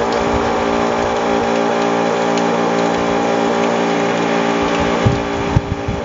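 Electric pumps of a Crown CPS-B16DN and a Robot RT-16E knapsack sprayer running together with a steady motor hum, while their water jets splash onto the concrete. About five and a half seconds in there is a click and the hum gets weaker.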